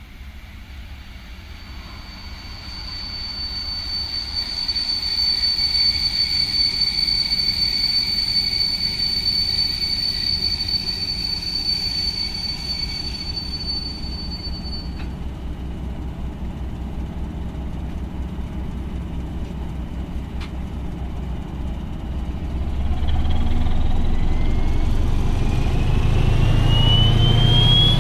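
SU42 diesel locomotive hauling a passenger coach into the station, with a steady high brake squeal from the wheels that stops about halfway through. Over the last few seconds the diesel engine runs up: a louder low rumble with a whine rising in pitch.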